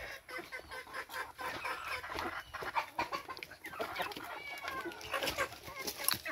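Chickens clucking in short repeated calls, over a run of quick sharp taps from beaks pecking at split coconut halves.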